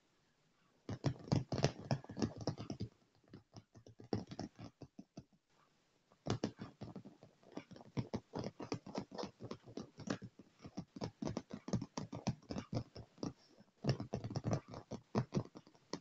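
Fingertips and nails tapping and scratching fast on a chair's leather upholstery, a dense flurry of quick clicks and scrapes. It starts about a second in, thins out, pauses briefly, then runs on fast with a louder flurry near the end.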